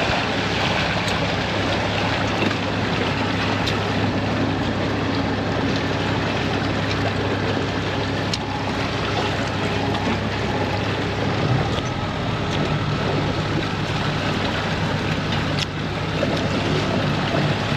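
Boat motor running steadily under wind and water noise, its low hum shifting to a slightly higher note about two-thirds of the way through.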